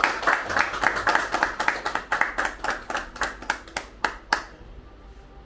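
Several people clapping their hands, the claps thinning out and stopping about four seconds in.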